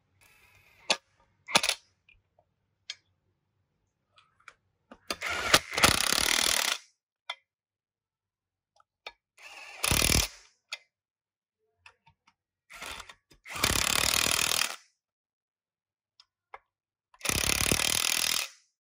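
Cordless power driver with a socket running bolts into a cast-iron grinder base in four short bursts of a second or so each, with a few sharp clicks of metal parts being handled before the first.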